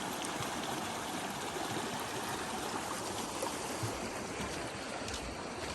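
Steady rushing of running water, like a stream flowing over stones, with a few faint clicks near the end.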